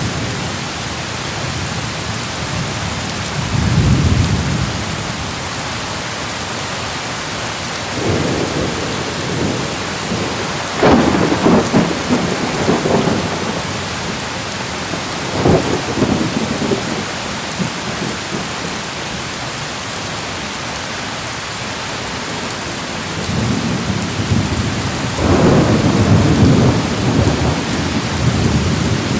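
Thunderstorm: steady rain hissing, with several rolls of thunder rumbling through it. The loudest is a sharper peal a little over a third of the way in, and a long roll builds near the end.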